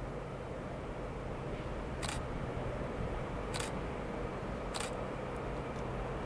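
Steady low outdoor rumble, slowly building, with four brief sharp high-pitched chirps: one just before the start and the others about two, three and a half and five seconds in.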